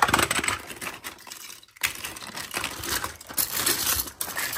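Toys clattering and rattling together as they are handled, many quick clicks, with a short pause a little after a second in.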